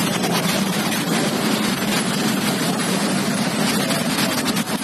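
Road traffic noise: motorcycles and a bus moving slowly past, heard as a steady wash of engine and tyre noise.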